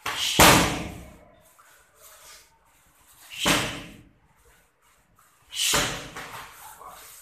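Three hard strikes landing on focus mitts: gloved punches smacking the pads, each a sharp slap with a short echo. The hits come about half a second in, at about three and a half seconds, and near six seconds.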